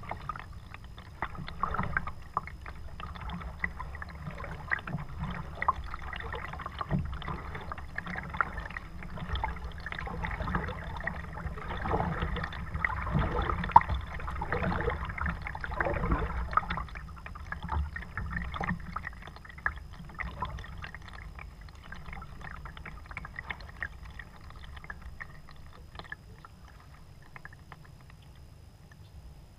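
Kayak paddle strokes dipping and splashing in calm river water, with drips and water washing along the plastic sit-on-top hull. The splashing is busiest about halfway through and eases off toward the end as the kayak glides.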